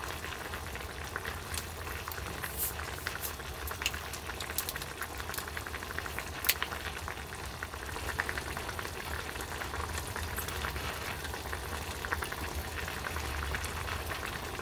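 Mala hotpot bubbling at a steady simmer, a fine continuous crackle, with a few light clicks and taps as a plastic bottle of makgeolli is opened and poured into a stainless steel bowl.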